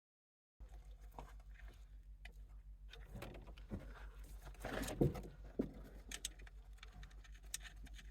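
Hand tools clicking and clinking against car metal, with small scattered knocks and one louder knock about five seconds in, over a low steady hum. This is the sound of someone working to free a brake booster from a car's firewall.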